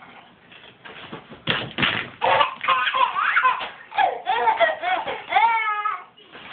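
Young child laughing hard in bursts, with high squeals that swoop up and down in pitch; it starts about a second and a half in.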